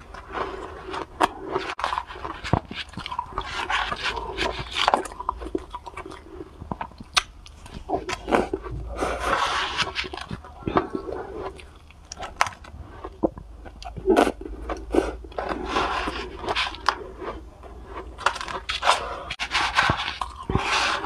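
Close-miked crunching and chewing of soft, fluffy cotton ice, with a metal spoon scooping and scraping in the bowl.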